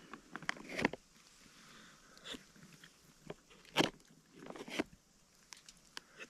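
A person biting and chewing food: a handful of irregular, sharp crunches, the loudest about a second in and near the four-second mark.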